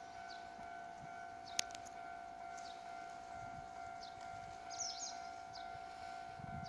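A steady electronic warning tone sounds without a break, while birds chirp in short, high, falling chirps over it; there is a single sharp click about a second and a half in.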